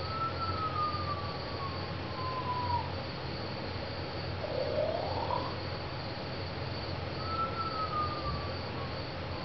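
Insect-like chirring, probably part of the show's soundtrack, runs over a low hum. Pure whistle-like tones glide slowly across it: a long falling tone, then a shorter rising one, then a second falling tone near the end.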